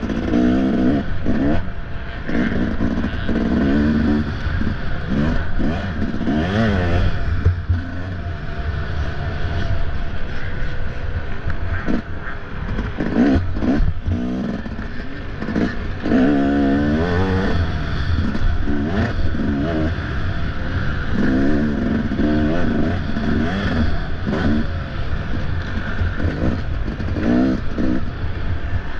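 Off-road dirt bike engine revving hard, its pitch rising and dropping over and over as the throttle is opened and closed, with clattering and scraping from the bike over rough ground.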